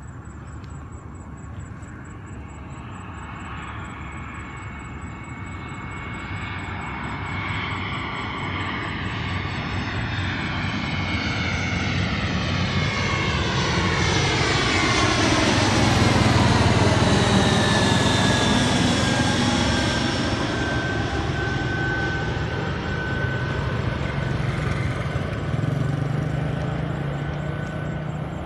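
Airbus A321-231's IAE V2500 turbofan engines as the jet comes in to land and passes by: the engine noise grows louder to a peak a little past halfway, then fades, while a whine drops in pitch as the aircraft goes past.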